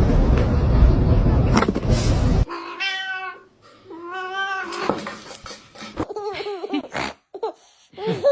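A loud rushing noise for the first two and a half seconds, then a cat meowing several times in drawn-out, wavering calls.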